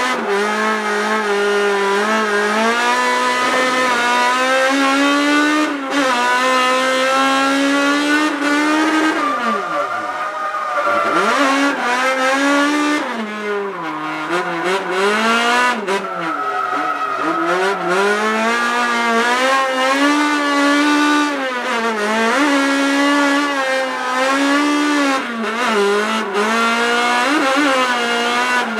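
Toyota AE86 Corolla's four-cylinder engine heard from inside the cabin while drifting, revs rising and falling again and again as the throttle is blipped and the gears change, with two deep drops in revs partway through. Tyres squeal under the engine as the car slides through the corners.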